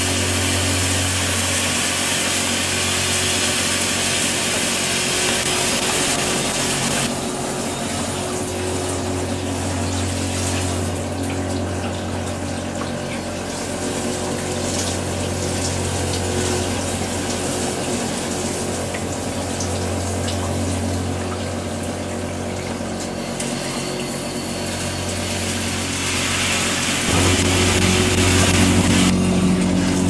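1961 Electrolux Dishmaid tabletop dishwasher running its wash cycle. Its small motor hums steadily while the pumps spray hot water over the dishes, and the splashing changes in strength a few times.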